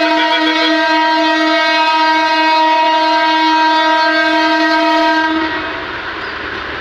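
Himalayan toy train sounding one long, steady horn blast that cuts off about five seconds in, followed by the rumbling running noise of the approaching train.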